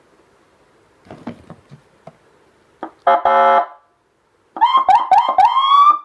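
LANDUN CJB100PD electronic siren sounding its Whelen-style tones: after a few clicks, a short blast of the electronic air-horn tone about three seconds in, then the siren's tone rising in short repeated whoops, four times, with a final longer rise that stops at the end.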